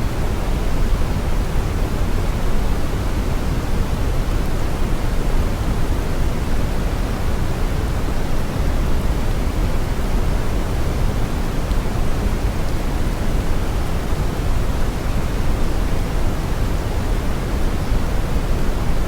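Brown noise: a steady, unbroken deep rushing hiss, its energy weighted heavily toward the low end with little treble.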